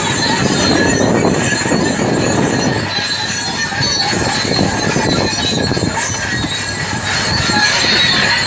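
Caterpillar crawler bulldozer working, its engine running under steel tracks that squeal and clank continuously, with steady high-pitched squealing tones over the rumble.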